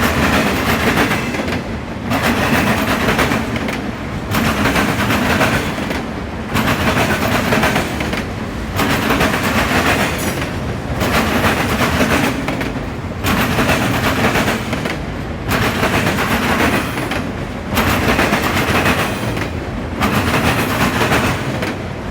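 Freight train cars rolling past, the wheels clattering and banging in a repeating group about every two seconds.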